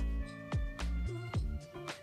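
Background music with a steady beat: low drum hits about twice a second under sustained pitched notes.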